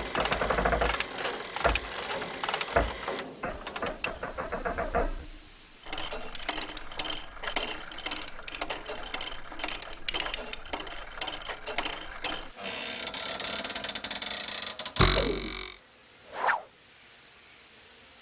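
Cartoon sound effects: a busy run of quick clicks and rattles, then two short swooping sounds near the end.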